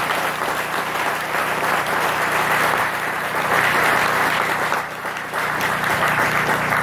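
Audience applauding steadily, easing briefly about five seconds in and picking up again.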